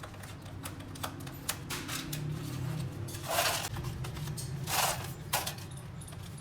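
Light metal clicks and taps scattered irregularly over a steady low hum. There are two short hissing bursts, one about three and a half seconds in and one about five seconds in.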